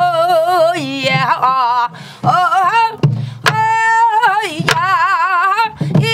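A woman sings a Namdo folk song in a strong, wavering vibrato. A few sharp strokes of a stick on a sori-buk barrel drum keep the beat, about three seconds in, near five seconds and near the end.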